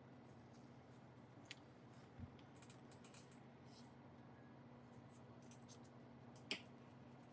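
Faint clicks and light scratches of small repair tools working on an iPad Pro's parts during a charging-port replacement, scattered and irregular, with one sharper click near the end, over a steady low hum.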